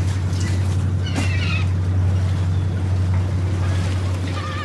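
A fishing cutter's engine running with a steady low drone, with gulls calling over it twice, once about a second in and again near the end.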